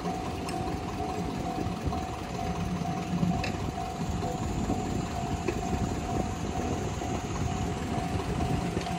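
Level-crossing warning alarm ringing in a steady repeating pattern, about two rings a second, over the low rumble of the approaching C57 180 steam locomotive-hauled train.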